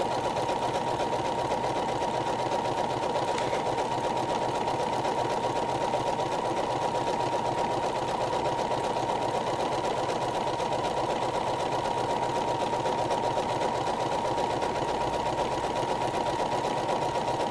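Regular home sewing machine running steadily at an even speed, stitching around the raw edge of an appliquéd fabric circle. Its rapid needle rhythm and a steady hum carry on unbroken throughout.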